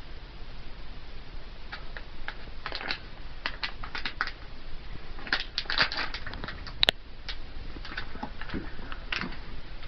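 Hamster's claws pattering and scratching on a hard wooden surface as it scurries about: irregular light clicks and scrapes, with one sharper click about seven seconds in.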